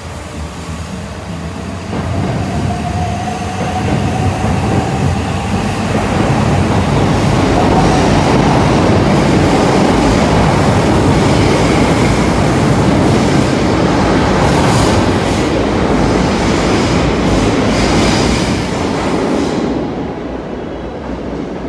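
Electric train running past close by in an underground station tunnel. A motor whine rises in pitch as it builds up, then the cars pass loudly with the rumble and clatter of wheels on the rails. The sound fades near the end as the train moves away.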